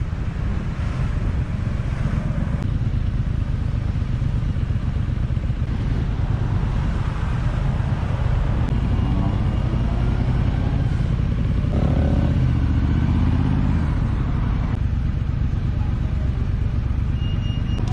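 Motorcycle engine running as the bike rides along, a steady low rumble whose pitch shifts now and then as the throttle changes.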